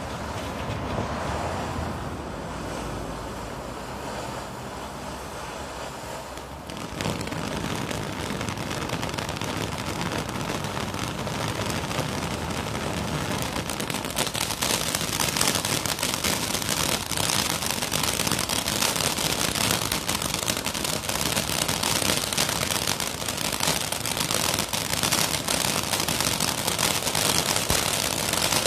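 Ground fountain firework spraying sparks with a steady hiss that grows louder about a quarter of the way in. From about halfway, dense crackling from small bursting stars joins the hiss.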